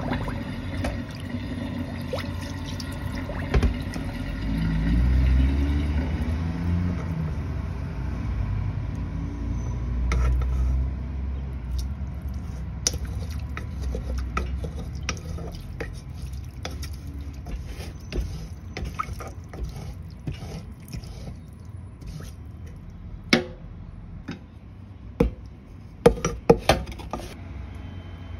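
Kitchen-sink handling of a burnt pot: water and burnt noodles are tipped out, and a wooden spatula stirs and scrapes the scorched bottom with many small clicks and scrapes. Several sharp knocks come near the end, over a steady low rumble.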